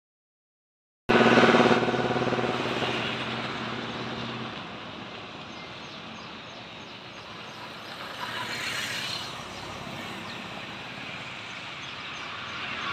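A motor vehicle's engine running close by: a steady hum that cuts in abruptly about a second in and fades over the next few seconds. A steady outdoor background noise is left behind.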